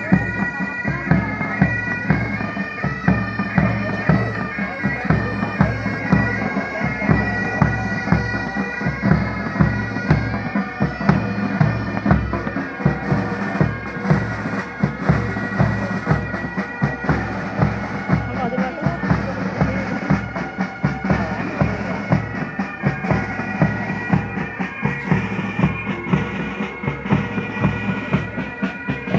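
Military pipe band playing a march: bagpipes carrying the melody over their steady drone, with a regular drumbeat underneath.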